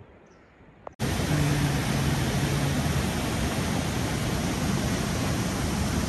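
A few faint high chirps, then about a second in an abrupt cut to the loud, steady rush of fast-flowing mountain water.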